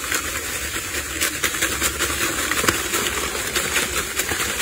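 Green leaves rustling and crackling as a bunch of leafy twigs is gripped and shaken by hand over a plastic bucket: a steady hiss full of small crackles.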